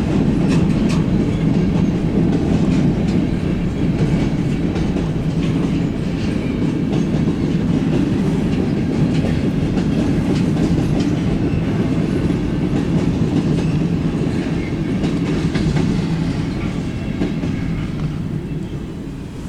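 Freight train cars rolling past on the rails, a steady heavy rumble with wheels clicking over rail joints, dying away near the end as the train moves off.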